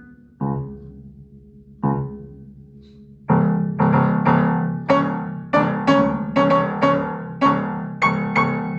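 Solo piano improvisation: two sparse low chords left to ring, then from about three seconds in a steady run of repeated struck chords, roughly two a second, with higher notes ringing over them.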